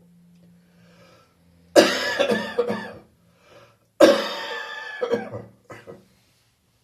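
Chesty coughing fit from phlegm left over after bronchitis. A faint breath comes first, then two hard coughing bouts about two seconds apart, each trailing off in a few shorter coughs.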